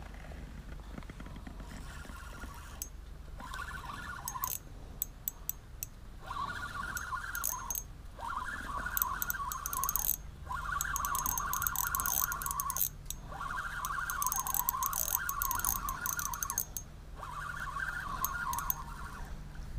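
Spinning reel being cranked in spurts, its gears and rotor whirring for a second or more at a time with short pauses between, as a giant river prawn is reeled in on the line.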